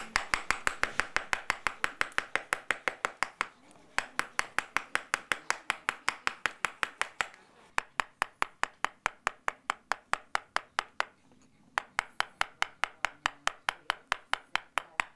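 Mallet striking a steel chisel into stone, a steady rapid tapping of about five blows a second as the chisel cuts. The blows come in runs broken by three short pauses.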